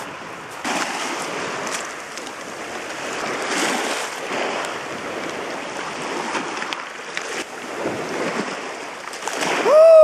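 Small sea waves washing over a pebble shore, the sound swelling and ebbing with each wave. Near the end a woman lets out a high squeal that rises and falls as she wades barefoot into the cold water.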